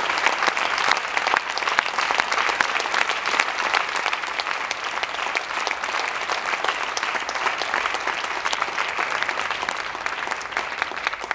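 Audience applauding, a dense steady clapping that slowly thins near the end.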